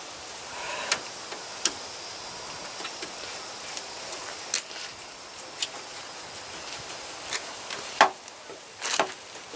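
Scattered sharp clicks and taps, about six in all and a second or more apart, with the loudest near the end, from a screwdriver and hands working a new plastic headlight and side marker lamp into place on a 2003 Toyota Tacoma.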